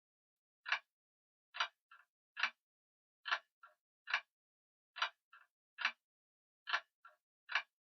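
Grandfather clock ticking steadily, a sharp tick a little under a second apart, each second tick followed by a fainter click.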